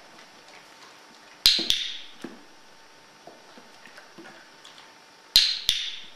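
Dog-training clicker clicked twice, each a sharp double click, about four seconds apart, marking the dog's behaviour. Faint light knocks of plastic toy parts on the step come in between.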